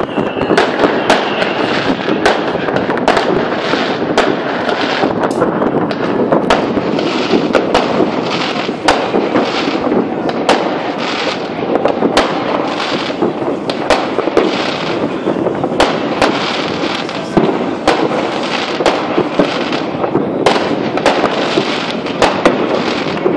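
Fireworks and firecrackers going off without pause: a continuous din of many overlapping bangs, with sharp louder reports several times a second.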